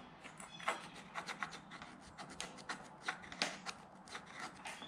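A screwdriver tip scratching a cut mark into a mountain-bike fork's steerer tube at the top of the stem: a run of short, irregular scrapes.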